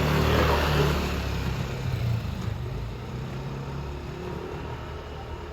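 Car engine and road noise: a low steady hum with a rush of noise that is loudest about a second in and then slowly fades.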